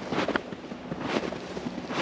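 Footsteps crunching through snow on a trail, two steps in this stretch at an even walking pace.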